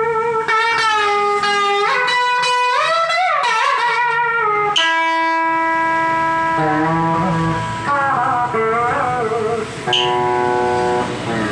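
Electric steel guitar playing slow music. Its notes slide and waver in pitch for the first few seconds, then a freshly struck note rings and holds from about five seconds in, with another about ten seconds in.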